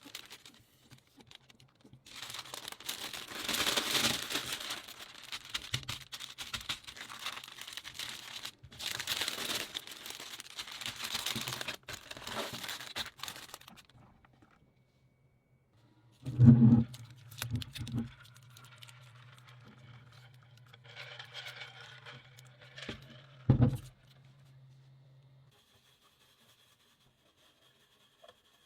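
Crinkling and rustling handling noise for about twelve seconds, then a low hum with two loud thumps.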